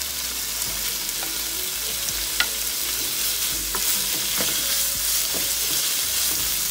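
Raw beef sizzling steadily in hot olive and sesame oil in a nonstick frying pan as a wooden spatula stirs it, with a few clicks of the spatula against the pan.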